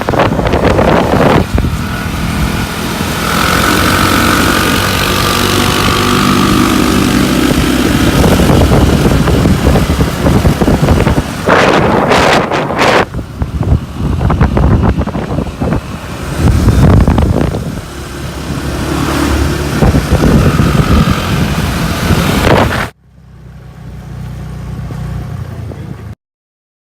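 Wind buffeting the microphone of a moving two-wheeler, with its engine running underneath. Near the end the wind noise cuts off sharply, leaving a fainter low engine hum, then the sound stops.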